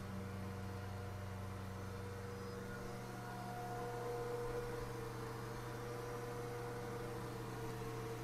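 K.O. Lee surface grinder running with a Scotch-Brite deburring wheel on its spindle: a steady motor hum whose tone shifts about three seconds in.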